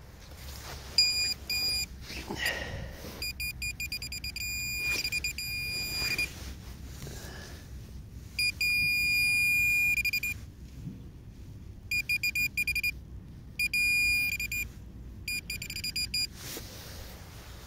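Minelab Pro-Find 40 pinpointer beeping on one fixed high pitch, sometimes in quick pulses and sometimes as a steady held tone, as it is worked over a buried metal target in a freshly dug hole. Brief scuffs of soil being handled come in between.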